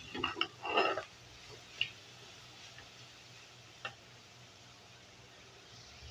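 Metal slotted spoon stirring shredded cabbage and ground beef in an aluminium pot: a quick cluster of scrapes and clinks in the first second, then two single taps about two seconds apart.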